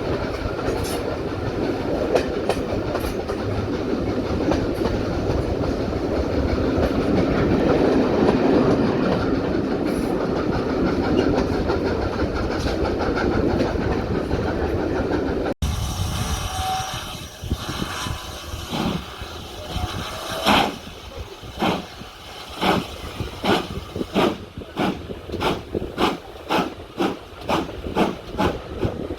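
Train running on the track: a steady rumble of carriage wheels on rail. After a sudden cut about halfway through comes the clickety-clack of wheels over rail joints, the clicks coming faster and faster as the train gathers speed.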